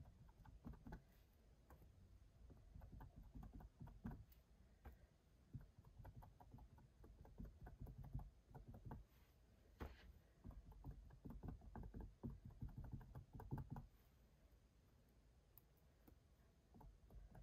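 Faint, soft taps of a cotton swab dabbing acrylic paint onto a stretched canvas, several a second in an irregular run, stopping a few seconds before the end.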